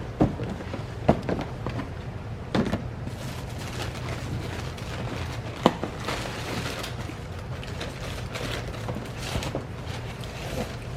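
Steady low hum with a few sharp knocks and some soft rustling, the sound of objects being handled.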